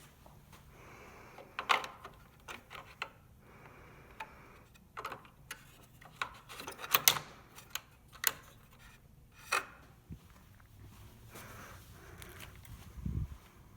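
Scattered clicks, taps and knocks of printer parts and tools being handled during reassembly, irregular, with louder knocks about two seconds and seven seconds in.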